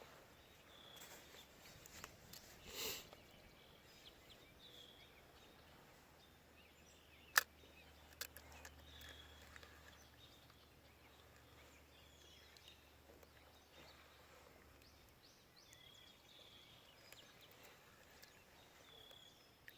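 Near silence: quiet outdoor ambience with faint, short high chirps every few seconds and one sharp click about seven seconds in.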